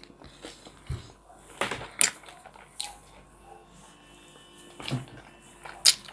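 A person chewing a mouthful of lavash wrap: soft wet mouth smacks and clicks at uneven intervals, with louder smacks near the end as she licks her fingers.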